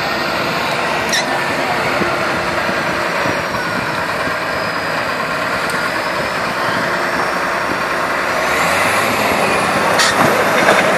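Farm tractor's diesel engine running under load as its front loader works against a wooden boat hull, over crowd chatter. Two sharp knocks, about a second in and near the end.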